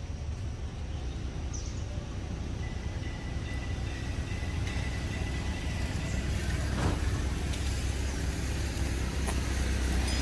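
A motor vehicle's engine running, growing gradually louder as it comes closer.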